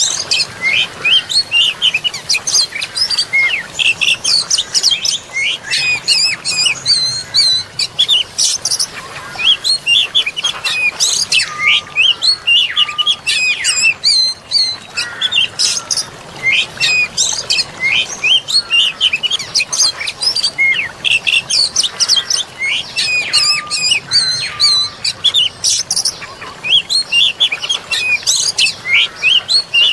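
Dense chorus of many small songbirds chirping and singing in rapid, overlapping notes, with a few short level whistles, over a soft hiss of flowing water.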